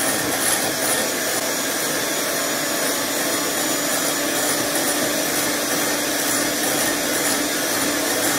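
Electric hand mixer running steadily with a constant motor hum, its wire beaters whipping egg whites and sugar toward stiff peaks in a ceramic bowl.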